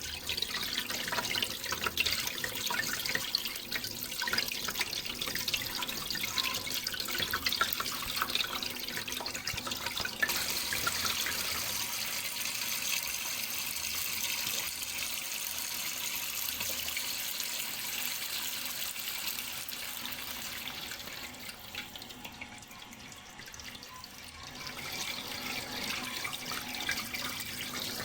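Water running and splashing: a steady rush broken by many small splashes and drips, smoother after about ten seconds in. It drops in level for a couple of seconds late on, then comes back.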